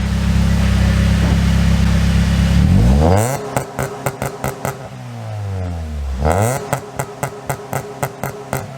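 1994 Acura Integra's four-cylinder engine revved through an exhaust with a 1320 header, universal catalytic converter and Apexi muffler: held at raised revs for about three seconds, then let fall, blipped once more about two-thirds through and let fall again, with a rapid clatter as the revs drop. Overall pretty quiet for the setup.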